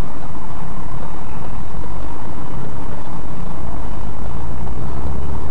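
Steady loud rumble of a vehicle on the move: engine and road noise.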